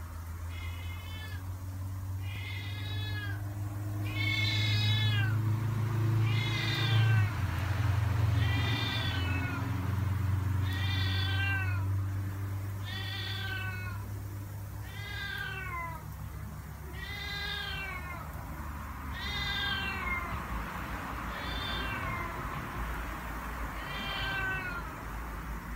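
A cat meowing over and over, about one meow every two seconds, each meow sliding down in pitch. A steady low hum runs under the first half.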